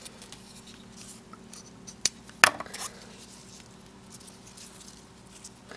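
Handling noise as a baked, stiffened korker ribbon is spun and slid off a wooden dowel: faint rustling, with two or three sharp clicks a little over two seconds in.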